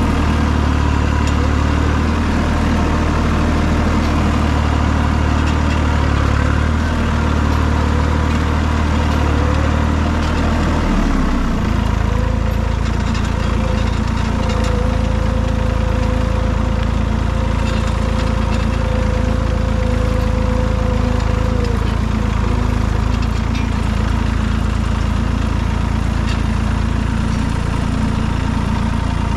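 Tractor's 3-cylinder Perkins diesel engine running steadily under way. About eleven seconds in, the engine note drops lower, and a thin steady whine runs for about ten seconds after that.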